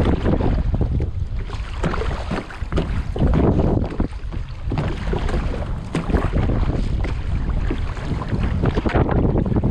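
Wind buffeting the microphone, with water splashing and lapping irregularly around a sea kayak.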